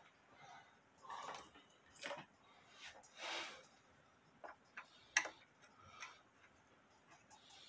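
Faint, irregular clicks and short scrapes of a screwdriver working the small screws at a wooden clock's glass bezel, with one sharper click about five seconds in.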